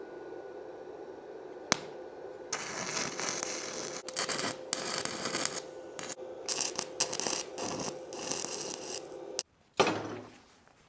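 Stick-welding arc from a 1/8 inch 7018 rod on a small Dekopro welder running on 110 V, crackling and hissing in uneven stop-start runs as steel angle iron is welded, starting about two and a half seconds in and cutting off shortly before the end. A steady hum comes before it, and a brief knock follows it.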